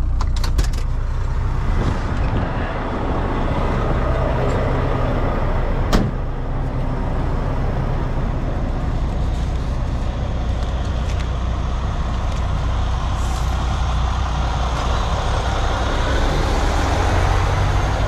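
Semi-truck diesel engine idling steadily, with a truck cab door clicking open near the start and shutting with a sharp knock about six seconds in.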